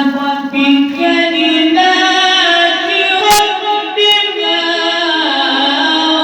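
A man's voice chanting Quran in a drawn-out melodic style, holding long ornamented notes that slide up and down in pitch. Two short sharp clicks cut in about three and four seconds in.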